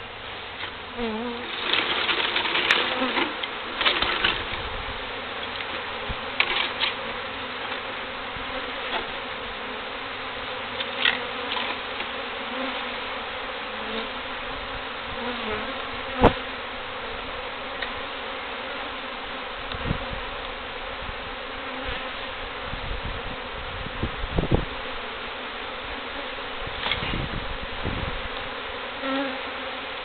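A disturbed colony of feral honeybees buzzing steadily all around as the bees are shaken from their comb into a hive. Louder rustling and knocks in the first few seconds, and scattered sharp knocks later, the loudest about halfway through.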